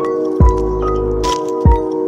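Music: a bell-like melody over steady held tones, with two deep drum hits, about half a second and a second and a half in.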